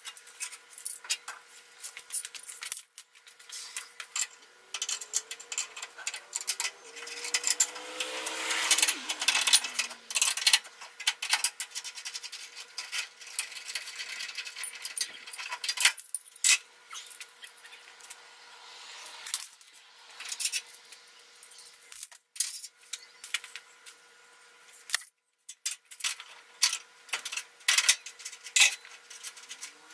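Hand tools clinking, knocking and scraping on a bare steel truck frame: an irregular run of metallic clicks and knocks, with a stretch of rougher scraping a few seconds in.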